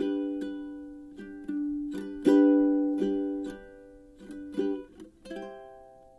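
Background music of plucked strings: a light picked tune over chords, each note decaying, with a last chord near the end left ringing and fading.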